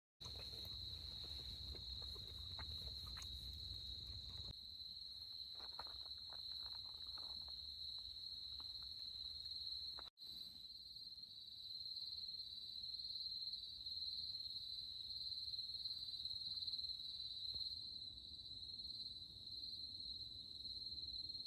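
Insects trilling steadily in one continuous high-pitched drone, with faint low rumble and a few soft ticks in the first few seconds. The sound cuts out for an instant about ten seconds in, then resumes.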